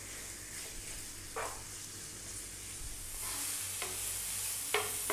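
Chicken strips sizzling in a nonstick skillet while a wooden spoon stirs them, with a few short scrapes and taps of the spoon against the pan. The sizzle grows louder about three seconds in.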